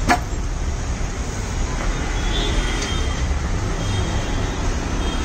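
Steady street traffic rumble, with a sharp click at the very start.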